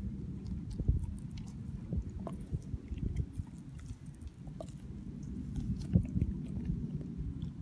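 Siberian husky gnawing and chewing a raw, meaty steak bone, a run of irregular wet crunches and bites, with one louder crunch about six seconds in.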